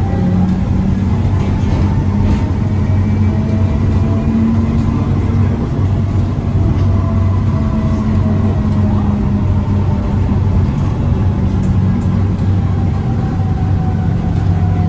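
Passenger train running, heard from inside: a steady low rumble with a faint whine that drifts slightly in pitch.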